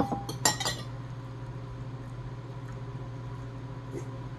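A quick cluster of sharp clicks and clinks in the first second from eating a seafood boil by hand, shells and tableware, then only a steady low hum.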